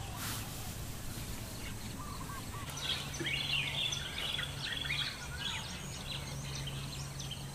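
Small birds chirping, with a busy run of short calls from about three to six seconds in, over a faint steady low hum and quiet outdoor background.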